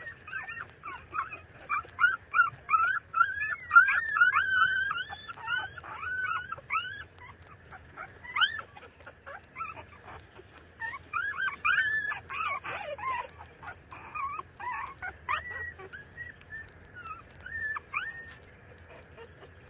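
30-day-old puppies squeaking and whimpering while suckling from their mother: many short, high-pitched squeaks in quick clusters, busiest through the first several seconds and again around the middle, thinning out near the end.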